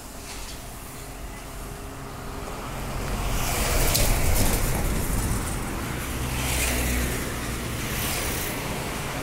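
Street traffic noise that swells as a motor vehicle passes close by about four seconds in. From then on a vehicle engine runs steadily nearby.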